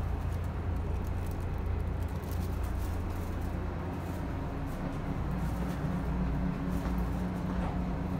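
Diesel railcar engine running with a steady low drone, heard from inside the passenger cabin, with faint scattered clicks.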